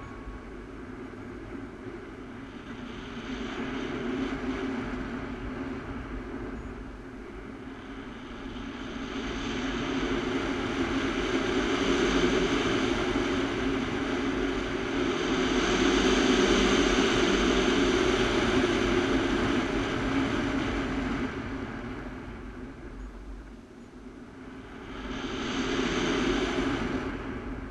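Wind rushing over the microphone of a paraglider's action camera in flight, swelling and fading several times.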